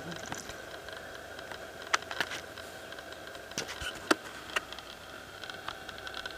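Quarter horse walking on arena dirt, its hooves and tack giving scattered, irregular sharp clicks and taps over a faint steady hum.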